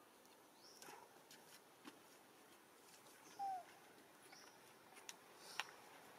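Near silence with faint scattered clicks and a few short, high, faint chirps; about halfway through comes one brief call that falls slightly in pitch, the loudest sound here.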